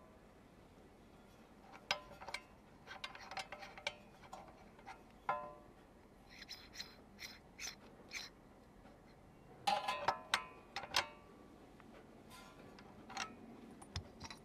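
Handling noise from a tablet press's forced-stirring feed shoe: scattered clicks, light metal clinks and rubbing as its parts and knurled threaded ring are turned and fitted, coming in small groups with the loudest cluster a little past the middle.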